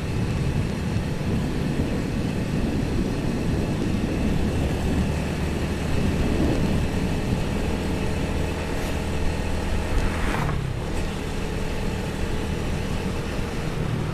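Motorcycle engine running at a steady cruising speed under road and wind noise, heard from the moving bike, with a brief rush of noise about ten seconds in.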